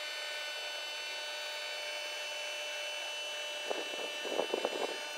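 A small portable water pump runs with a steady whine over the hiss of spray from a hose nozzle wetting down the rocks and ashes of a campfire ring. A few louder splashes come about four seconds in.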